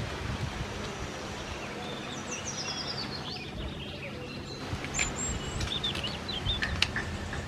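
Small birds chirping in short high calls, a quick run of them about two seconds in and more later, over a steady outdoor background rumble. A few short clicks of a metal spoon scraping pulp from a hard wood apple shell come in the second half.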